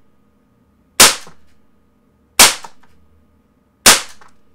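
Umarex Desert Eagle .177 CO2 pellet pistol firing three shots about a second and a half apart, each a loud, snappy pop that dies away quickly.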